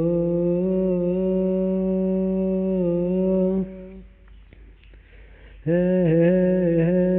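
A singer humming a wordless melody in long held notes. One note is held for about three and a half seconds and then breaks off. After a short quieter gap, a new hummed phrase starts near the end.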